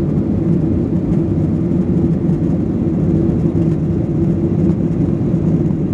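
Jet airliner's engines during a takeoff: a steady, loud drone that holds a constant low pitch.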